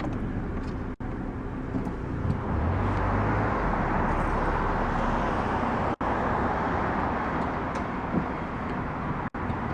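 Steady engine and road noise of a car rolling slowly, heard from inside the cabin. The sound drops out for an instant three times, at edit cuts.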